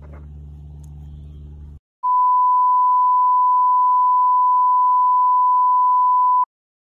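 Colour-bars test tone: one steady, pure high-pitched beep that starts about two seconds in, holds for about four and a half seconds and cuts off suddenly. Before it, a low steady hum runs for the first couple of seconds.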